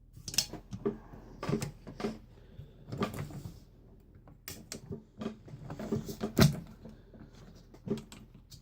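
Knocks and clicks of handling as the Rexair Model B vacuum is fitted onto its dolly, with a louder knock about six and a half seconds in.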